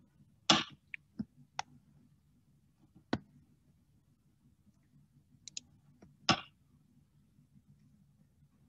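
Scattered sharp clicks from a computer mouse and keyboard, about eight in all. The loudest come about half a second in and just after six seconds, over a faint steady low hum.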